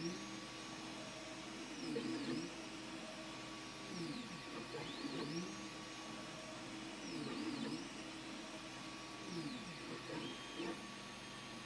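A DIY 3D printer printing, running quietly. Its stepper motors whine in pitches that rise, hold and fall in repeating sweeps as the print head speeds up, slows and reverses, over a steady hum from its fans.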